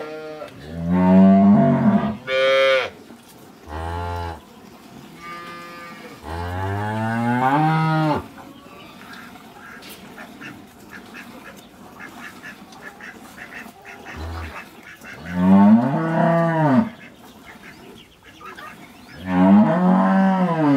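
Dairy cows mooing in the shed: a run of calls over the first eight seconds, a quiet gap, then two more long moos near the end.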